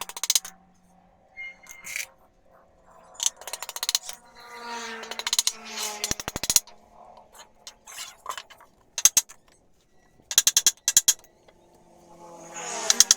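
Small metal hardware clinking and rattling in several short clusters of rapid clicks, as metal parts are handled.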